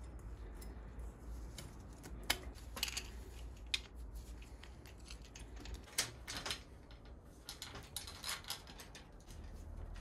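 Scattered small metallic clicks and clinks of hand work on a bicycle's rear hub and wheel: a sprocket being fitted onto the internal gear hub, then the rear wheel being set back into the frame. The clicks come a few at a time, with a quick run of them near the end.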